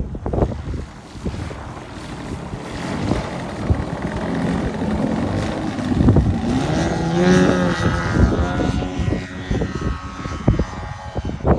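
Two-stroke gas engine of a giant-scale RC Cub (a DLE 170 twin) throttling up for the takeoff run, its pitch rising from about halfway through. Gusty wind buffets the microphone throughout.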